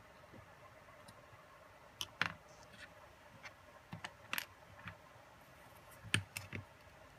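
Small parts of a DJI Phantom 3 gimbal, plastic and metal, being handled on a cutting mat: irregular light clicks and knocks, the loudest about two seconds in and about six seconds in.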